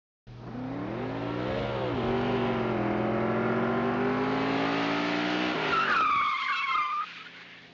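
A car engine running with rising and falling pitch, then a short high tire squeal near the end before the sound cuts off.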